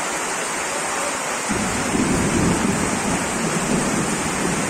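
Heavy rain and running floodwater, a steady hiss. About a second and a half in, a low rumble joins it for about three seconds.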